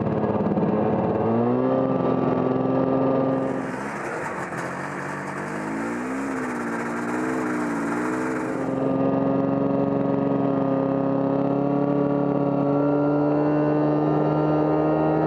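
Vintage two-stroke snowmobile engine running under way over snow, its pitch wavering up and down with the throttle. For several seconds in the middle the engine is quieter beneath a rushing hiss, then it holds a steady pitch with one small step near the end.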